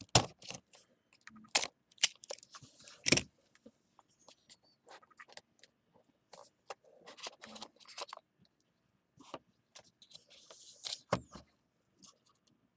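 Trading-card packaging and cards being handled by hand: a string of sharp clicks and taps with short spells of rustling and sliding. The strongest taps come in the first three seconds and once more about eleven seconds in.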